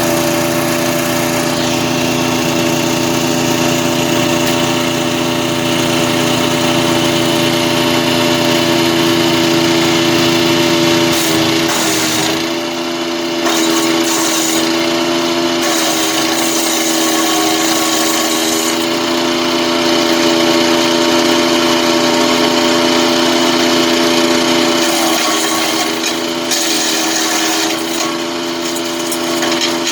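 Engine of a DK2 Power wood chipper running steadily. Its pitch sags briefly about twelve seconds in and again near twenty-five seconds.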